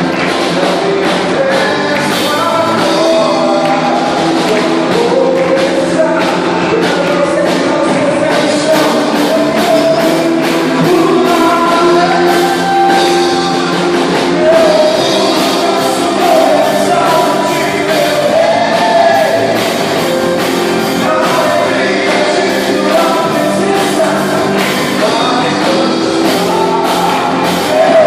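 A band playing a rock-style worship song, with a voice singing the melody over a steady drum beat.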